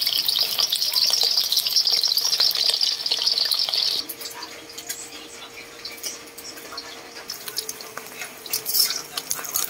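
Split dried fish (daing) frying in hot oil in a wok: a loud sizzle that drops off suddenly about four seconds in to a lighter crackle with scattered pops.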